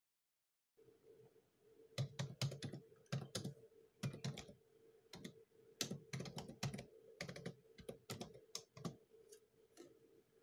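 Typing on a computer keyboard: quick, irregular key presses in short runs, several a second. They start about two seconds in and thin out near the end, over a faint steady hum.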